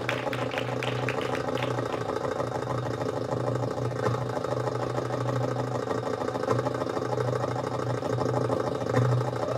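Egyptian tabla (darbuka) solo music in a stretch of continuous low rolling, with few separate strokes standing out after the first two seconds.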